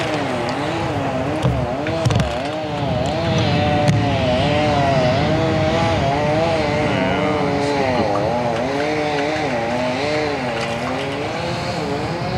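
A boat engine running with a steady drone, its pitch wavering up and down about once a second. There are a couple of low knocks about two seconds in.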